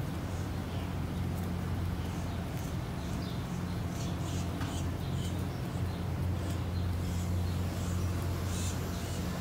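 Small birds chirping with many short, scattered high calls, over a steady low hum.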